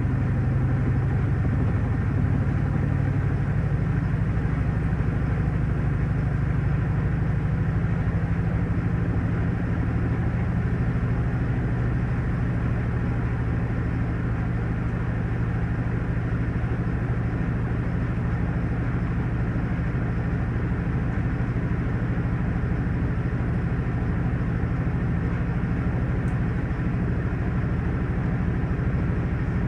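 Panasonic top-loading washing machine running: a steady low motor hum.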